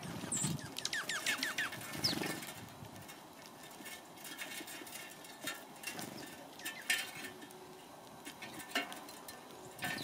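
House sparrows chirping: a quick run of about eight short falling chirps in the first two seconds and one higher falling note just after, followed by scattered sharp taps and ticks of the birds pecking seed on a metal feeder tray.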